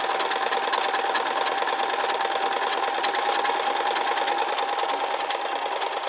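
Kenmore 12-stitch sewing machine running steadily as it stitches fabric: a steady motor whine under rapid, even clicking of the needle mechanism.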